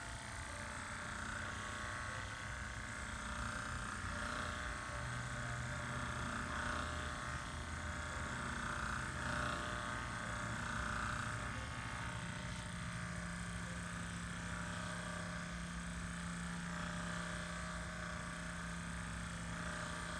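Hypervolt percussion massage gun running against the back muscles, a steady motor hum whose pitch steps up about twelve seconds in.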